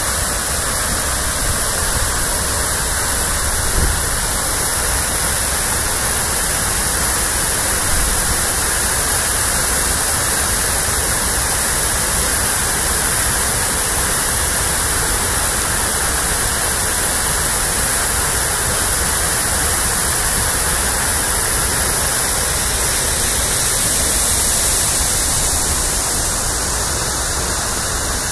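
Water pouring over the tiers of a stepped stone cascade fountain and splashing into its basin: a loud, steady rush that eases a little near the end.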